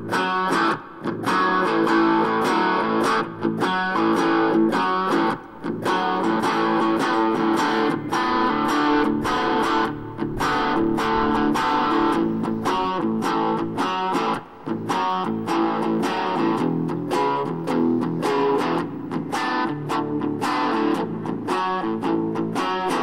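Electric guitar playing an instrumental piece in short, choppy strokes with frequent brief stops between them.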